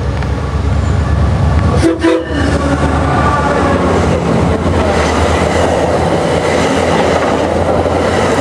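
A MARC commuter train's horn gives one short blast about two seconds in. The MP36PH-3C diesel-electric push-pull train then runs past, and the steady noise of wheels on rails fills the rest.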